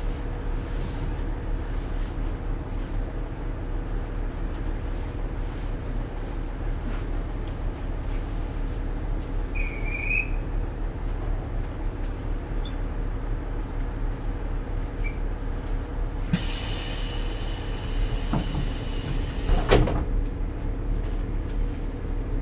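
Diesel railcar's DMF14HZ engine idling steadily while the car stands still. About sixteen seconds in, compressed air hisses for about three seconds and ends in a sharp knock, typical of the pneumatic sliding doors closing.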